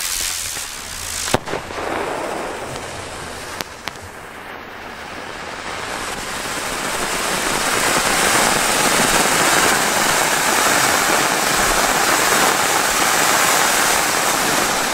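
Ground firework fountain spraying sparks: a few sharp cracks in the first couple of seconds, then a steady, loud hiss that builds over several seconds and holds.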